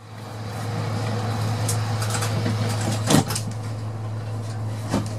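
Steady low electrical hum inside a stationary AEG GT8N tram, with a sharp knock about three seconds in and a smaller knock near the end.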